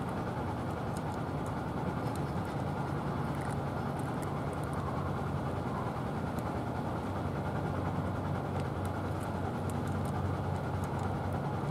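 Steady low rumble of distant vehicle traffic, an even hum that does not rise or fall.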